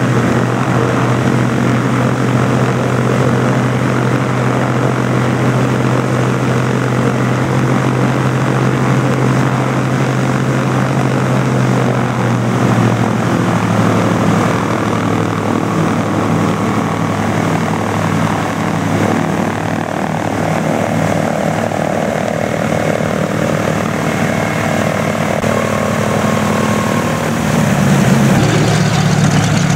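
Douglas C-47 (DC-3) twin radial piston engines, Pratt & Whitney R-1830s, running at low power with the propellers turning as the aircraft taxis. The engine note shifts about halfway through, and the engines grow louder near the end.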